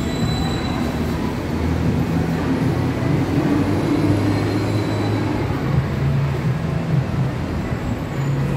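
Steady rumble of a nearby train running on rails, with faint high whines above it and shifting low machine tones.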